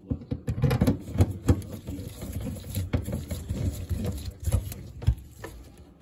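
Gloved hands rustling, scraping and knocking right at the microphone while driving a screw to mount a new pressure switch on the furnace's sheet-metal panel: a run of irregular clicks and scrapes.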